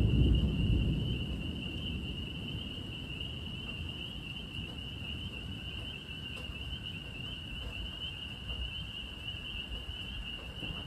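Thunder rumbling and dying away over the first second or two, leaving a faint low rumble. Over it runs a steady, high-pitched chorus of calling night animals that does not change.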